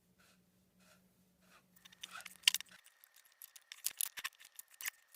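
Light clicks, taps and scrapes of small hard parts being handled, sparse at first, then sharper from about two seconds in with one loud click.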